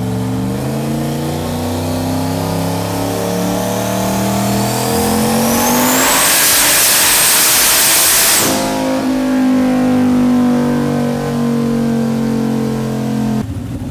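Turbocharged 5.3-litre V8 under load on a chassis dyno, its revs climbing slowly with a turbo whine rising in pitch: slow to build boost. About six seconds in, a loud rushing noise joins for roughly two and a half seconds, then stops abruptly as the engine drops back and runs down. The sound cuts off suddenly near the end.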